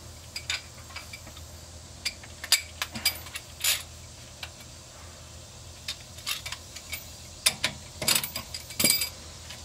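Steel hand tools, a socket wrench and a combination wrench, working a 19 mm brake caliper bolt: scattered metallic clicks and clinks, with a quicker, louder run of clicks near the end as the bolt is loosened and turned out.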